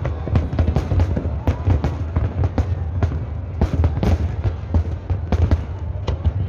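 Aerial fireworks display with many shells bursting in quick, overlapping bangs, several a second, over a steady low rumble.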